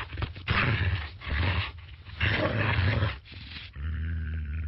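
A fish making barking, growling calls: two harsh rasping calls, then a steady low buzzing drone from about four seconds in.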